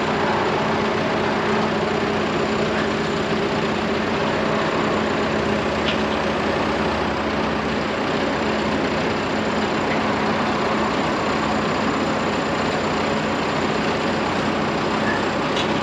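Tractor engine idling steadily, with an even low hum that holds throughout.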